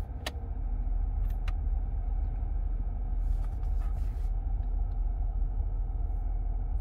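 Steady low rumble of a BMW 7 Series (F01/F02) idling, heard from inside the cabin, with a few faint clicks in the first second or two.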